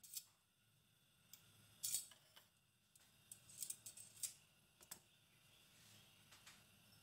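Faint, scattered crackles and ticks from cooking oil heating in a non-stick frying pan on a gas hob, with a few small clusters of pops over an otherwise near-silent background.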